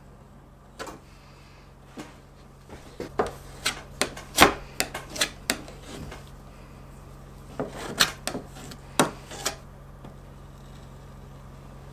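Steel putty knife scraping and clicking against window glass and the wooden sash in short strokes while trimming glazing putty, in two runs of strokes, the loudest a little after four seconds in.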